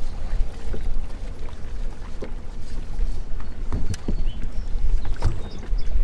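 Wind rumbling on the microphone and water slapping against a bass boat's hull, with a few light knocks.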